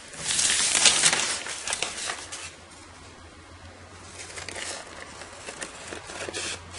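A brown-paper pattern piece being handled, rustling loudly for the first couple of seconds, then scissors cutting through the paper with faint snips in the second half.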